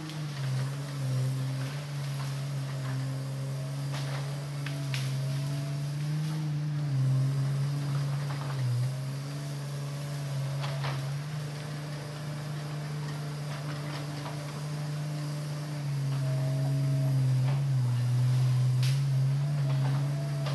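Hitachi Zaxis 200 hydraulic excavator's diesel engine running under working load, its steady hum dipping and rising in pitch several times as the hydraulics take load, with scattered sharp cracks and knocks from the machine working among the trees.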